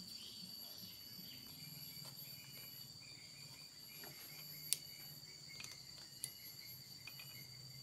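Faint steady high-pitched cricket trill with a few light clicks, the sharpest about two-thirds of the way in.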